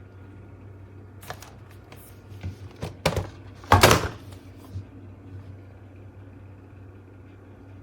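A series of knocks and clunks from a cordless stick vacuum being handled, the loudest a heavier clunk about four seconds in, over a low steady hum.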